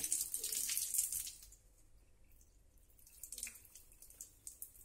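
Water running from a tap and splashing onto a hard tiled floor, loud at first and dropping to a faint trickle about a second and a half in, with a few small wet ticks as a bar of soap is rubbed between hands.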